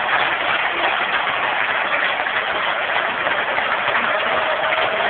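Football crowd in the stands cheering, a loud steady roar with no breaks. A faint steady tone comes in about four seconds in.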